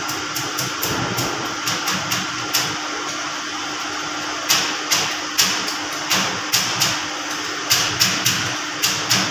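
Machinery running with a steady hum, overlaid by sharp, irregular clacks about two to three a second that grow louder about halfway through.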